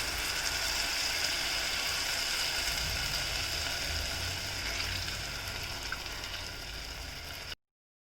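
The rasam base of ginger, garlic, chilli and tomato sizzling in a hot pan as tamarind water goes in: a steady hiss that eases slowly and then stops abruptly near the end.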